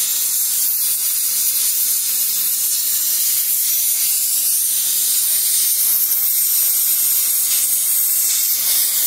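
HHO (oxyhydrogen) torch flame hissing steadily as it heats thick steel to melt a brazing rod, with a faint low hum beneath.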